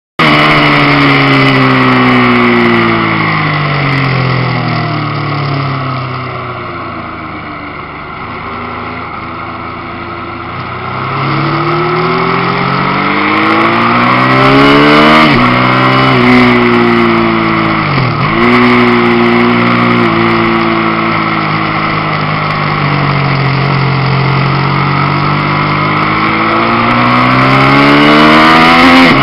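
Sport motorcycle engine heard from on board while lapping a race track. Its revs fall for the first several seconds as it slows for a corner, then climb hard through the gears with quick shift drops about halfway, and rise again steadily near the end.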